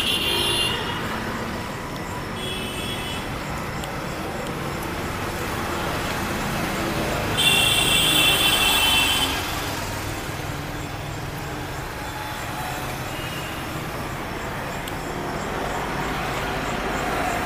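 Street traffic noise: a steady hum of passing vehicles. Over it come a few short high-pitched tones, the longest and loudest lasting almost two seconds about halfway through.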